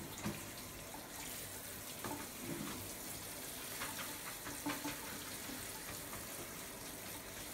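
Handheld shower head spraying water onto a tray of sprouting fodder seeds: a steady hiss of running water with a few faint clicks.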